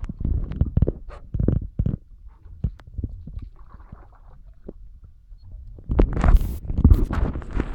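Muffled, irregular knocks, thumps and rubbing from a phone in a waterproof plastic case being handled in a canoe, with a louder burst of rubbing about six seconds in as something brushes right against the case.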